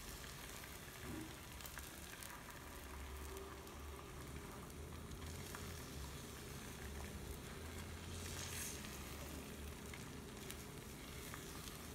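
Beaten eggs sizzling faintly in hot oil in a wok as a silicone spatula stirs them, with a few light taps near the end.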